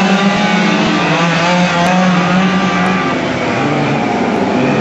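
Several quarter-scale RC oval race cars running flat out on their small two-stroke gas engines, a high buzzing whine that rises and falls in pitch as the cars lap and pass.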